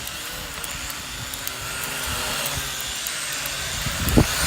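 Vivitar Aeroview DRC446 quadcopter's propellers whirring steadily, with a sudden loud thump about four seconds in.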